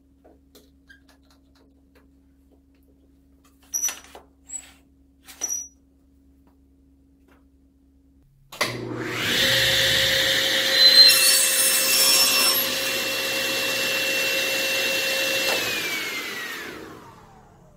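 A few sharp clicks and knocks, then a belt-drive SawStop cabinet table saw is switched on about halfway in and runs with a steady whine. It crosscuts a board, loudest around the cut, and is then switched off near the end, its pitch falling as the blade winds down.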